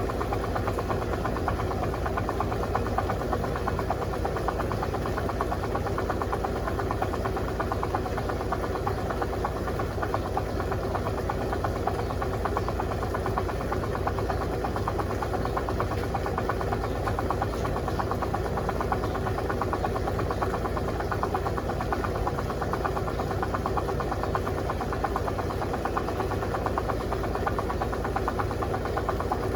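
Electrolux LTC07 compact top-loading washing machine running steadily: a constant motor hum with vibration.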